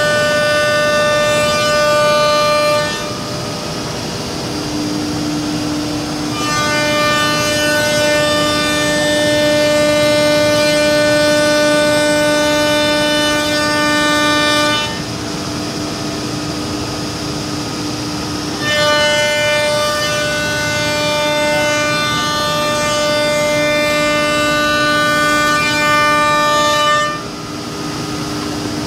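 Woodmaster WM-1325RBS CNC router's spindle milling wood panels: a loud, steady whine of several tones while the bit cuts. The whine drops to a quieter hum about three seconds in, again around fifteen seconds and near the end, and picks up again between those breaks.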